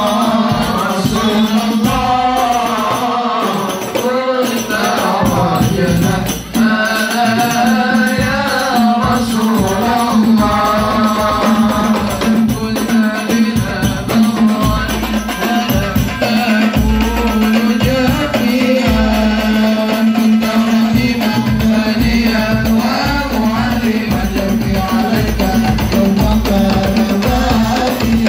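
Sholawat sung by a boy's voice in a wavering melody, accompanied by a hadrah ensemble of rebana frame drums beating a steady, dense rhythm. Deep drum beats join about halfway through.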